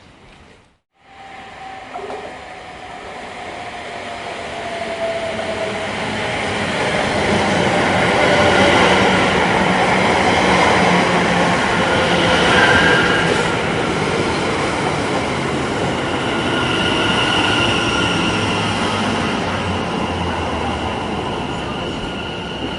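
Electric passenger train pulling into a station: a building rumble of wheels on rails starts suddenly about a second in, with a whine that falls slowly as the train slows and high wheel and brake squeals over the top.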